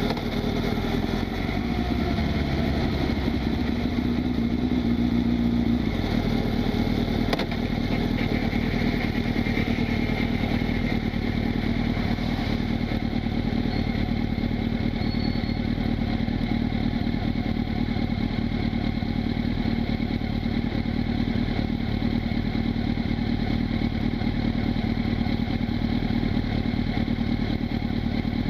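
Honda CB1000SF's inline-four engine running on the road, its revs falling over the first couple of seconds and then holding steady.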